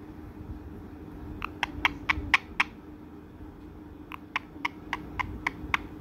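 Quick, soft clicks in two short runs, about six near the start and about eight later, over a steady low hum.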